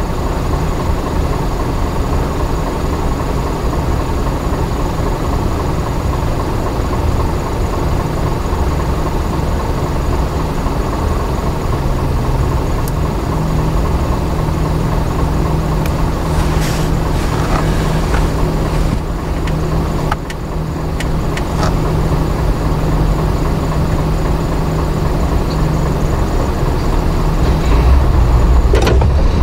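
Steady low hum of idling traffic, heard from inside a small car stopped in a queue. Near the end an engine note rises as the queue starts to move off.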